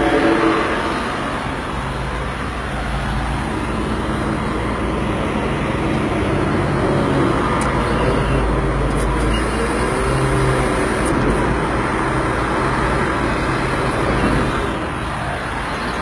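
Diesel engine of a CAT 140M motor grader running steadily as the machine drives along, heard from inside the cab.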